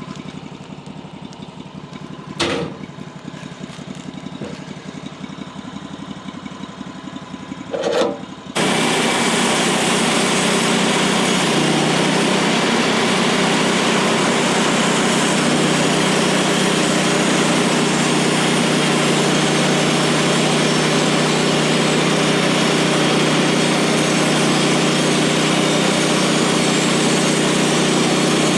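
Small gas engine of a bandsaw sawmill running steadily at low speed, with two short knocks, one about two and a half seconds in and one about eight seconds in. Just after the second knock it jumps suddenly to a much louder, steady high-speed run, with the band blade spinning, and holds there.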